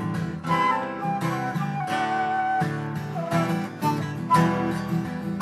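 Instrumental break of a country-style song: acoustic guitar strumming with a picked melody line.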